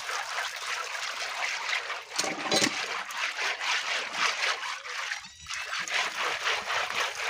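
Water pouring from a hand-pump spout and splashing onto hands and wet concrete, with a brief drop in the flow about five seconds in.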